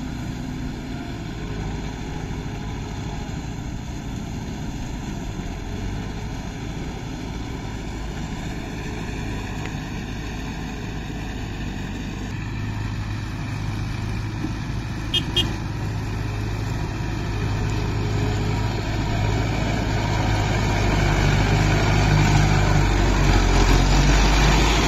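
Kubota tractor's diesel engine running steadily while pulling a rotavator, growing louder over the last several seconds as the tractor comes close. Two short clicks come about halfway through.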